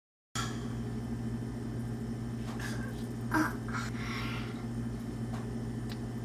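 Steady electric hum from a small kitchen appliance, with a fast low pulsing underneath and a few faint brief knocks and rustles about three to four seconds in.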